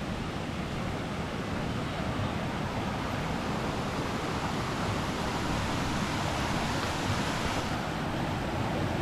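Water of a waterfall cascading over granite ledges, a steady, even rush.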